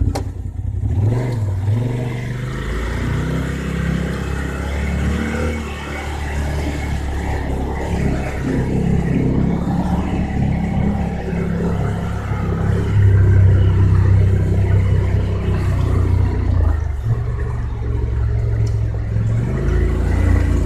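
Off-road vehicle's engine running under load and revving up and down with the throttle, heard from inside the open cab; it is loudest about two-thirds of the way through.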